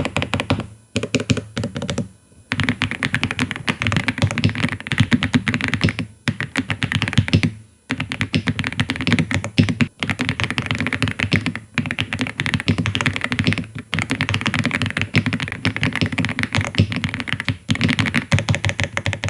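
Typing on an AULA F99 mechanical keyboard with LEOBOG Greywood V3 linear switches: fast runs of keystrokes with brief pauses every couple of seconds.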